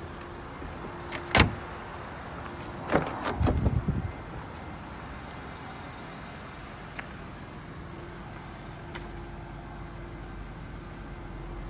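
Ford Focus car doors being worked: a single sharp clunk about a second and a half in, then a quick run of latch clicks and knocks about three to four seconds in as the rear door is opened.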